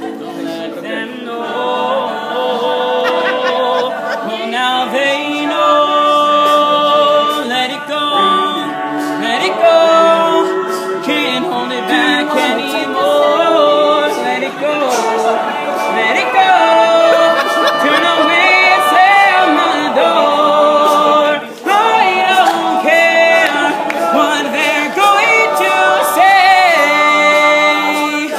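All-male a cappella group singing, a lead voice over sustained backing harmonies, with a brief drop in level about 21 seconds in.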